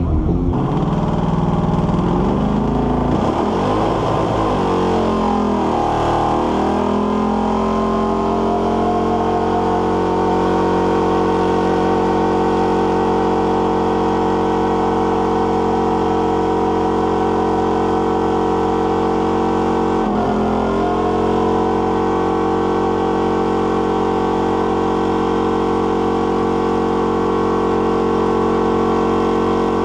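Car engine held at high revs in a tyre-smoking burnout. Its pitch rises and falls for the first several seconds, then holds steady, dipping briefly about twenty seconds in before it recovers.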